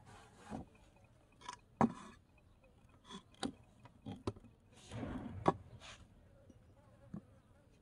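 Handling sounds of miniature kitchen things: a cloth rubbing over the surface in short strokes, and a series of sharp taps and knocks as a small wooden cutting board is set down and positioned, the loudest about two seconds in and again a little after five seconds.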